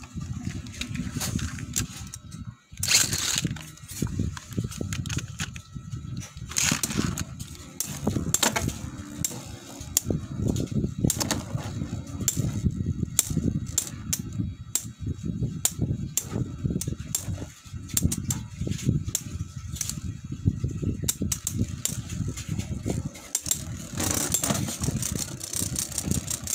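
Two Metal Fight Beyblades, Diablo Nemesis X:D and L-Drago Destroy F:D, are launched into the stadium about three seconds in. Then they spin with a low grinding whir on the floor of the dish, with rapid clicking and clacking as their metal wheels strike each other.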